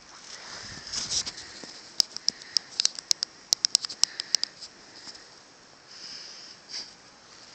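A German Shepherd puppy's front paws scratching and digging at a crusted snowbank: a quick run of about a dozen crisp, crunching scrapes in the middle, with softer rustling before and after.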